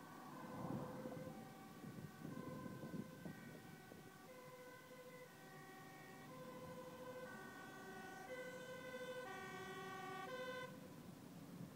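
Dutch fire engine's two-tone siren alternating between a high and a low pitch about once a second, growing louder as it approaches and cutting off suddenly near the end. Passing car traffic can be heard in the first few seconds.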